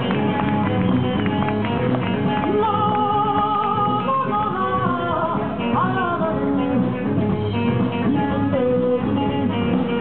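Live band playing Malian-influenced desert blues rock: electric guitars over drums and a djembe, with a singer's voice wavering and bending above them from a few seconds in.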